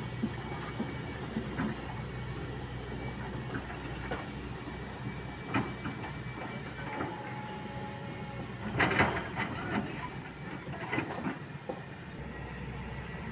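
Volvo crawler excavator's diesel engine running steadily while its steel tracks clank and rocks knock as the machine moves and turns over stony ground. A cluster of loud knocks about nine seconds in is the loudest moment.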